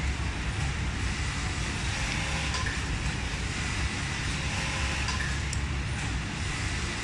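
Steady low rumble of machinery noise on a garment factory floor, with a few faint clicks.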